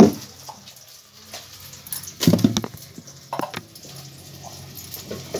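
Scattered knocks and clicks: a sharp knock at the very start, a short cluster of dull thuds a little over two seconds in, and a few light clicks about a second later.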